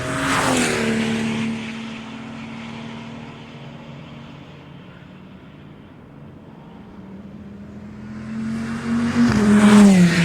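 Two race cars passing at speed, one just after the start and another near the end. Each engine note drops in pitch as the car goes by. In between, the first car's engine fades into the distance before the second one comes up.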